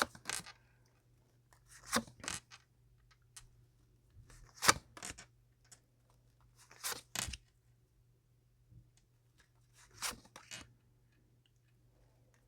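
Tarot cards being handled and drawn: short papery rasps and snaps, several in quick pairs, every couple of seconds.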